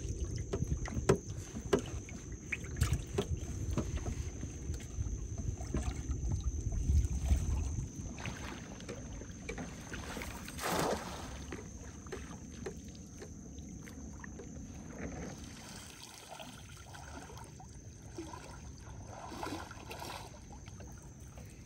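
Shallow water sloshing and splashing around a wading person throwing a cast net, with one short splash as the net lands about eleven seconds in, then quieter dripping and sloshing as the net is drawn back.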